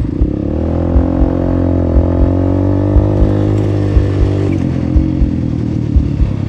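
Motorcycle engine under way, pulling up in revs over the first second, holding steady, then easing off about four and a half seconds in as the throttle closes. Short low thumps come every fraction of a second throughout.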